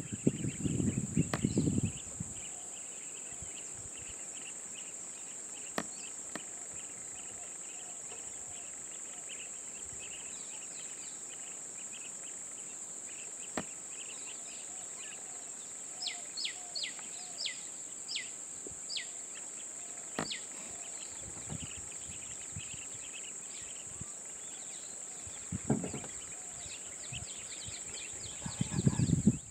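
Dry-scrub ambience: a steady high-pitched insect drone with many small bird chirps over it. About halfway through, a bird gives a run of short notes that fall in pitch. Low rumbling comes in briefly at the start and again near the end.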